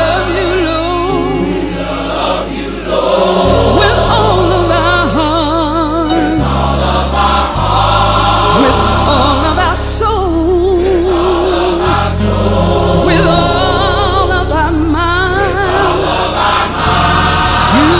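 Gospel music: a choir singing with vibrato over instrumental backing, with sustained low notes that change every second or two.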